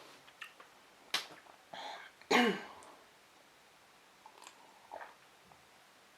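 Close-up eating sounds: a sharp mouth click about a second in, then a short voiced throat sound falling in pitch about two and a half seconds in, followed by faint wet clicks of chewing.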